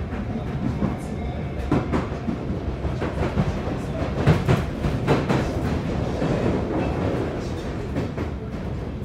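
Interior running sound of a Sotetsu 8000 series electric train car: a steady rumble from the wheels and bogies on the track, with a run of clattering clicks over rail joints strongest in the middle.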